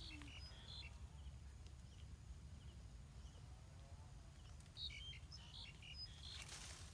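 Faint outdoor ambience: small bird chirps at the start and again about five seconds in, over a low steady rumble, with a brief rustle of leaves near the end as fruit is pulled from the branch.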